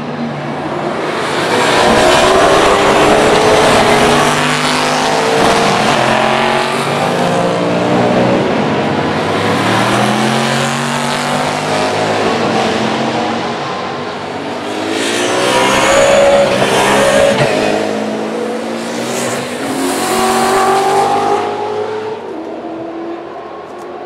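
A pack of Superstars Series saloon race cars braking and downshifting into a chicane and accelerating out, several engines at once with their notes sliding up and down. The sound comes in waves as cars pass, loudest a couple of seconds in and again twice in the last third.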